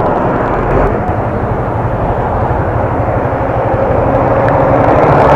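Suzuki GSX-S150 motorcycle under way, its single-cylinder engine running beneath a heavy rush of wind on the camera microphone, growing gradually louder.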